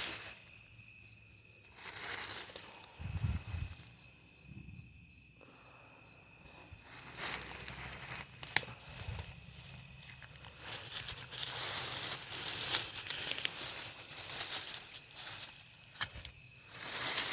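Insects chirping in a steady, even rhythm, with repeated bursts of rustling and crackling, like leaves and plant stems being handled.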